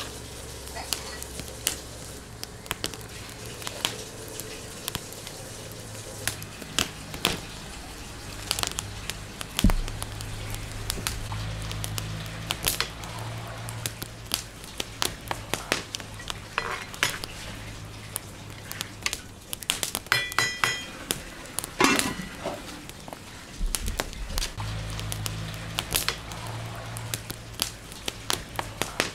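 Open wood fire crackling under a large metal cooking pot while rice is stirred into the stock, the metal spoon clinking and scraping against the pot. A quick run of ringing metal taps comes about two-thirds of the way through.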